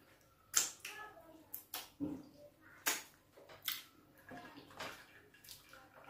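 Close-up wet mouth sounds of a person sucking food off her fingers and licking her lips after eating fufu with soup: a string of short lip smacks and finger-sucking clicks, about eight or nine, spaced irregularly.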